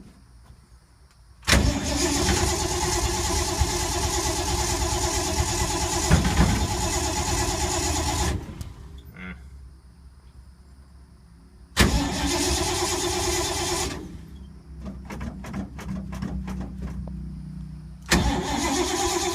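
1952 Ford's starter cranking the engine in three bursts, about seven seconds, two seconds, then again near the end, without it catching: a hard start on an engine the owner thinks he has flooded.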